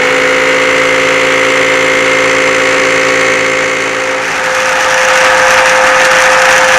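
Hoover WindTunnel upright vacuum cleaner running, a steady motor whine over loud air rush, with an awful rattling noise from the brush roller, a sign that the roller's little bearings have gone bad. The rushing grows louder about five seconds in.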